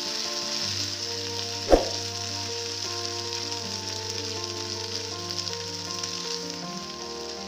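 Green peas sizzling in hot mustard oil in a frying pan while being stirred, a steady frying hiss, with one sharp knock about two seconds in.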